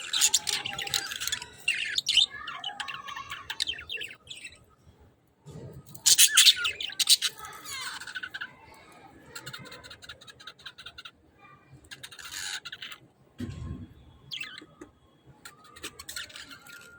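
A flock of budgerigars chirping, chattering and squawking in bursts, with short quieter gaps between.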